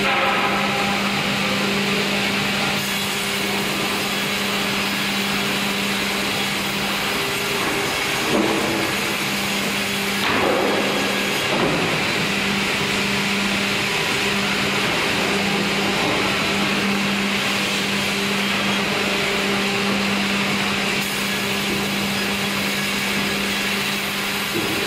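Sawmill machinery running steadily: a constant mechanical hum with a steady low tone under a broad noise, as the log carriage travels along its rails toward the band saw. Brief changes in the sound about eight and ten seconds in.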